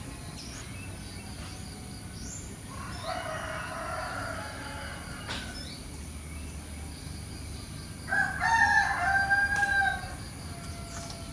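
Rooster crowing twice: a quieter crow about three seconds in, then a louder one near the end that drops in pitch as it finishes.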